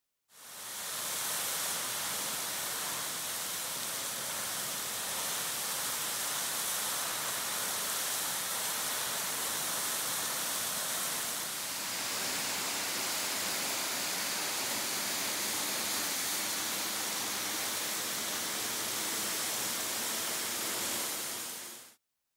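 Thin waterfall spilling off a sandstone ledge onto rocks, a steady hissing splash with a brief slight dip near the middle. It fades in at the start and fades out at the end.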